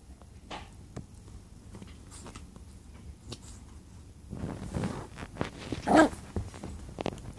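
Maltipoo puppy wrestling with a fabric bolster pillow: soft scattered scuffs at first, then busier rustling and scuffling from about four seconds in, with one short, loud yap about six seconds in.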